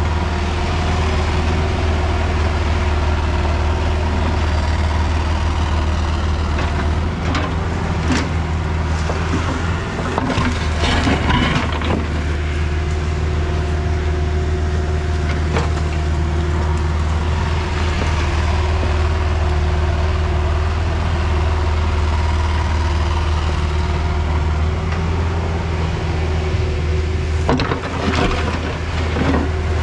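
Kubota compact excavator's diesel engine running steadily as it digs, with the bucket crunching and scraping through wet soil and stones several times, most around ten seconds in and again near the end.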